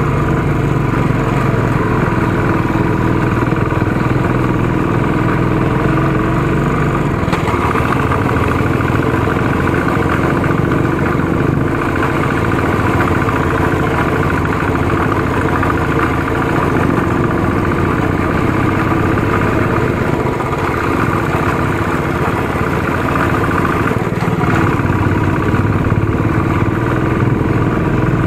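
Royal Enfield Classic motorcycle's single-cylinder engine running steadily while riding along, heard from the rider's seat. The deepest part of its rumble eases about seven seconds in.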